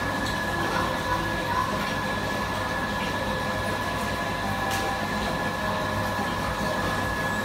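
Electric floor fan running: a steady motor hum with a constant high whine, and a few faint clicks.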